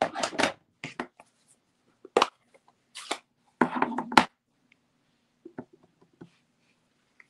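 Rubber-stamping supplies handled on a craft desk: a series of sharp plastic clacks and rustles over the first four seconds, then a few soft taps as the stamp is pressed onto the ink pad.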